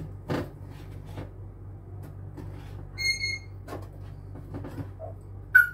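Light knocks and clicks of crackers and a lid being handled in a white box on a kitchen counter, over a steady low hum. A short electronic-sounding beep comes about three seconds in, and a brief, loud high squeak near the end.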